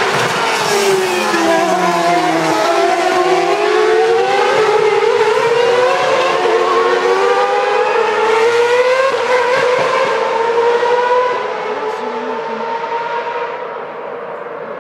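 Formula One cars with 2010-spec 2.4-litre V8 engines passing at high revs. Several engine notes overlap, falling and then rising in pitch, and the sound eases off about eleven seconds in.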